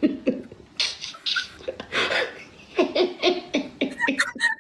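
A man and a young woman laughing hard together, in quick repeated ha-ha bursts that come thick and fast in the second half.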